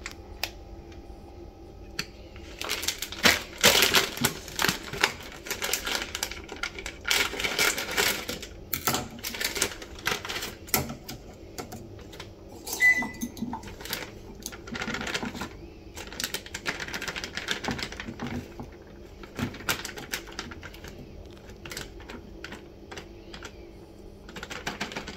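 Plastic packet of urad flour crinkling and rustling as it is handled and torn open by hand, in irregular bursts of crackles and sharp clicks that start about two seconds in.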